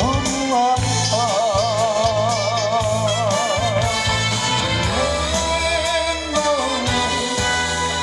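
A solo vocalist singing into a microphone over a backing track with bass and drums, holding long notes with a wide vibrato.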